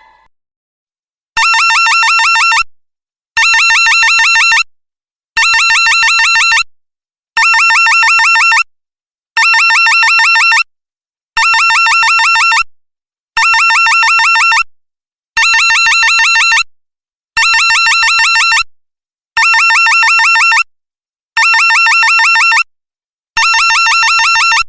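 Electric alarm bell ringing in repeated bursts, about 1.3 seconds of rapid clanging every 2 seconds, twelve times, with silence between bursts.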